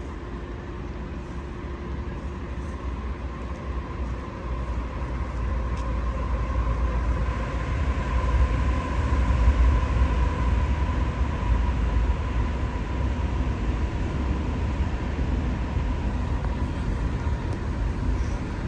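Fire engine's engine running with a low rumble and a steady whine, growing louder over the first half and then holding steady.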